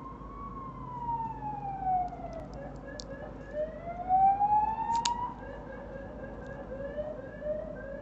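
Siren wailing in the background, its pitch slowly rising and falling. Two sharp clicks, about three and five seconds in, as the tools of a small folding pocketknife are handled.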